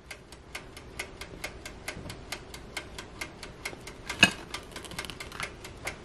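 Wind-up dial timer of a Dash Mini Toaster Oven ticking evenly, about six ticks a second, counting down the bake time. A single louder knock comes about four seconds in.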